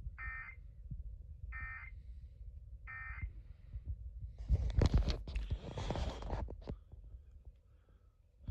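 Three short, identical bursts of Emergency Alert System digital data tones, about 1.4 seconds apart: the end-of-message code that closes an alert broadcast. They are followed by a couple of seconds of loud, noisy rustling and clicks.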